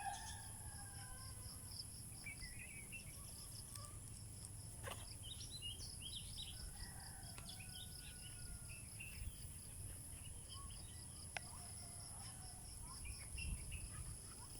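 Rural outdoor ambience: a steady high-pitched insect drone with a rapid pulsing insect chirp, scattered short bird chirps, and a low rumble underneath.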